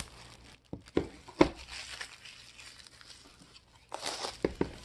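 Clear plastic album sleeve crinkling and crumpling in the hands near the end. Before that come a couple of sharp knocks as a boxed album is handled on the wooden table.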